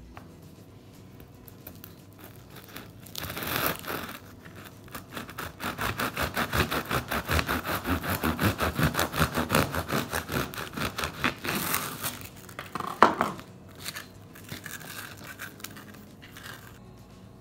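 Knife sawing through the hard crust of a semolina loaf: a crackle as the blade breaks into the crust, then several seconds of quick back-and-forth strokes, about four a second, and a sharp knock near the end as the cut finishes.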